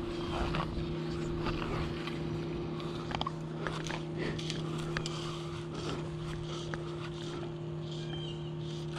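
A steady low mechanical hum holding one pitch, with scattered light clicks and ticks over it.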